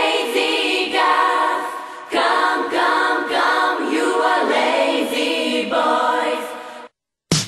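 A chorus of voices singing without accompaniment. It breaks off about seven seconds in, and after a brief silence a full pop backing track with bass comes in at the very end.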